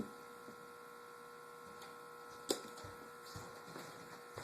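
A sharp click about two and a half seconds in and a few soft knocks, made by metal engine parts being handled on the bench, over a faint steady electrical hum.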